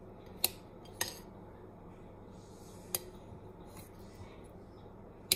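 A kitchen knife clicking against a ceramic plate as peeled hard-boiled eggs are cut into quarters: four sharp clinks at uneven intervals, the loudest near the end.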